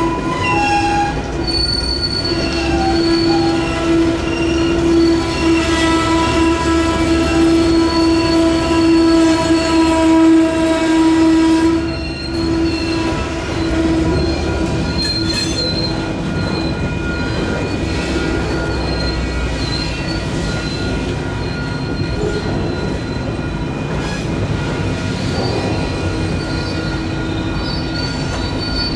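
Slow-moving freight train behind Union Pacific SD59MX diesel locomotives, its wheels squealing in long steady high tones over the low rumble of the engines and cars. The crossing's electronic warning bells ring along with it.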